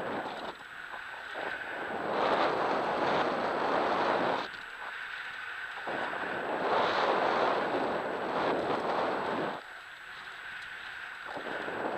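Wind buffeting the microphone of a camera moving fast along a dirt trail, mixed with the rushing of tyres over the dirt. It swells twice and eases in between as the speed changes.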